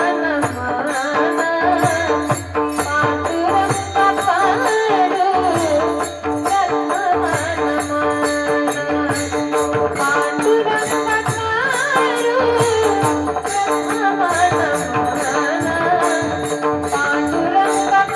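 Marathi kirtan music: a voice singing a wavering devotional melody over a steady held drone, with a regular beat of jingling metallic strikes keeping time.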